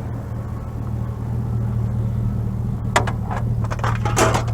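Car engine running steadily with a low rumble, with a few short sharp knocks near the end.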